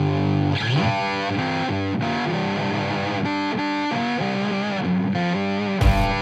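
Intro music: a distorted electric guitar lets a chord ring, then plays a riff of changing notes; drum hits come in near the end.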